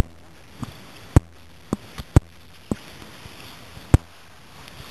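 A lump of sodium metal reacting violently on open water, giving off a string of sharp pops at irregular intervals as it bursts and spits hydrogen. The loudest pop comes about four seconds in.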